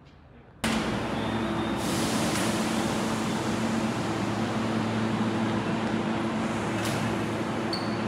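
Steady running noise of a vehicle in motion, an even rush with a low droning hum, cutting in abruptly about half a second in.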